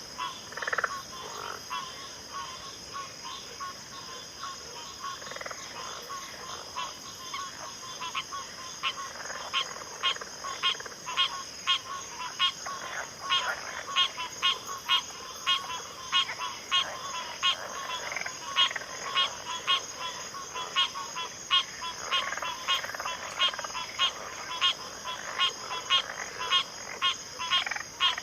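A chorus of frogs calling in backwater, with repeated short calls that become regular and louder about a third of the way in, roughly two a second. A steady high-pitched drone runs underneath.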